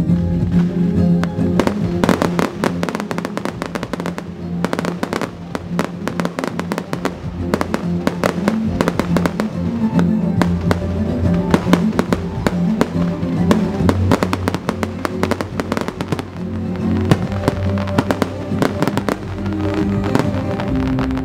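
Fireworks going off in rapid, irregular bangs and crackles over orchestral music with sustained low string tones.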